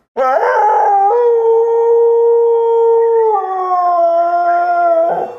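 Blue heeler–catahoula mix dog howling: one long howl that swoops up at the start and holds a steady note, then drops to a lower held note a little after three seconds in before cutting off near the end.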